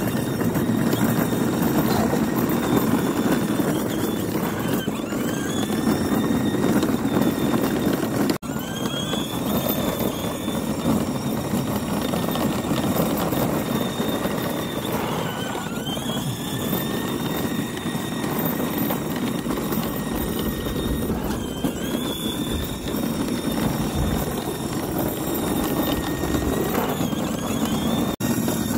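Kid Trax 12-volt ride-on toy zero-turn mower driving, its electric drive motors whining over the steady rumble of its plastic wheels on asphalt. The whine rises and levels off several times as the mower speeds up and turns.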